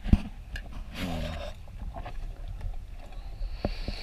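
Quiet mealtime sounds over a steady low hum: a dull thump at the start, a short murmured voice about a second in, and a couple of light clicks of a spoon against a soup bowl near the end.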